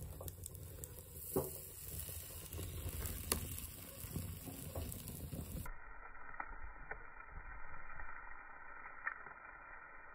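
Marinated chicken kabab pieces sizzling on a wire grill over an open wood fire, with scattered crackles and pops from the burning wood. About halfway through the sound turns duller, losing its top.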